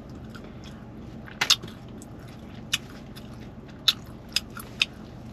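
A person chewing a mouthful of burrito, with six short sharp mouth smacks, two close together about a second and a half in.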